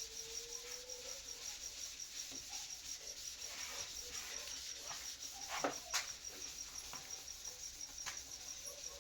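A cricket chirping steadily in the background, a high, rapid, even pulse of about five chirps a second. A faint low squeak comes near the start, and two sharp taps about six seconds in.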